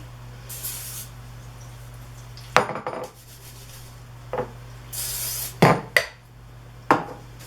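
Cooking spray hissing in two short bursts, about half a second in and again about five seconds in, as it is sprayed onto gloved hands. Several sharp knocks and clinks of kitchen utensils and dishes fall between and after the bursts.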